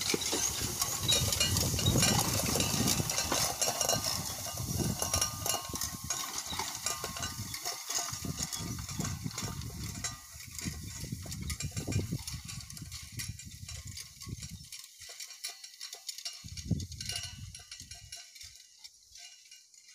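Horse-drawn finger-wheel hay rake rattling as it is pulled through cut hay, growing fainter as it moves away. A last short rattle comes near the end.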